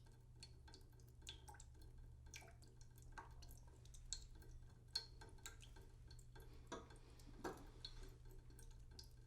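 Water dripping slowly into a cooking pot in a sink: irregular drops, roughly two a second, some with a short ring. A couple of louder drops come about seven seconds in, over a faint low hum.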